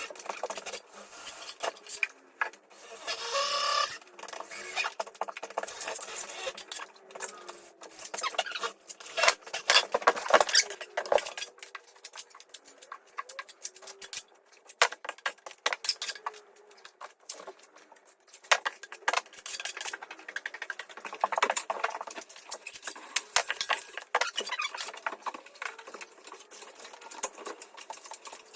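Filling knife scraping and tapping as filler is pressed into the gaps around a wall socket: an irregular run of scratches and small clicks, with a denser stretch of scraping about three seconds in.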